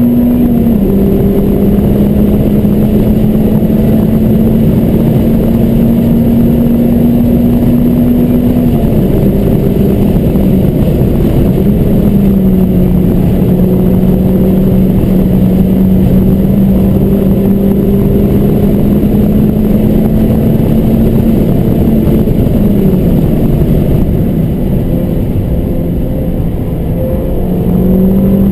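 Car engine running hard at speed, a steady note that drops in pitch at shifts about nine, twelve and twenty-three seconds in, over a steady rush of wind and tyre noise. It eases off slightly near the end, then picks up again.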